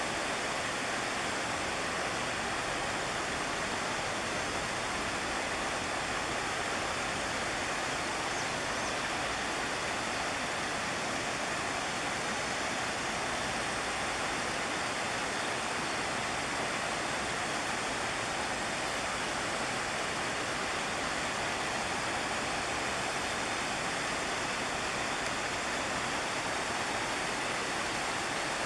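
Shallow river rapids rushing over stones: a steady, even hiss of running water that does not change.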